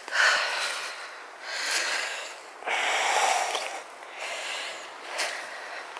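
A person breathing heavily close to the microphone: several separate breaths, each a short rush of noise.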